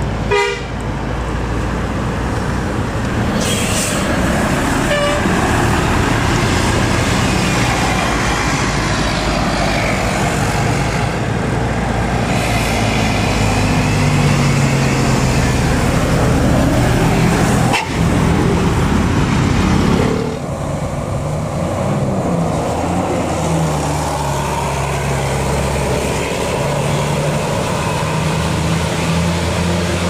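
Diesel coach buses driving up a winding hill road, engines running under load with the pitch rising and falling. A brief horn toot sounds in the first second.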